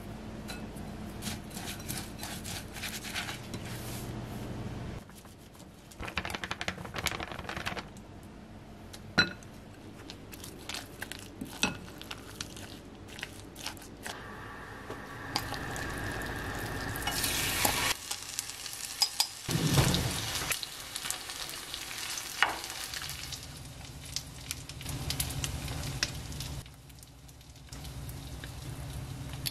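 Wooden chopsticks stirring shredded cabbage, batter and squid in a glass bowl, with many sharp clicks and scrapes against the glass. Later, an okonomiyaki sizzling as it fries in a pan.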